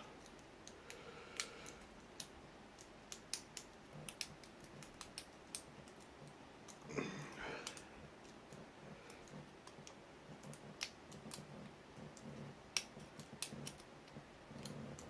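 Lock picks working in the keyway of an ABUS 83AL/45 padlock: scattered small, irregular clicks and ticks as the pins are probed, with a brief louder rustle about seven seconds in.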